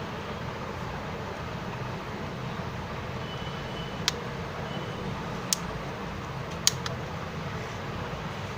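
Steady low hum with three sharp small clicks about a second and a half apart, the tap and click of tweezers on the small parts of a smartphone being taken apart.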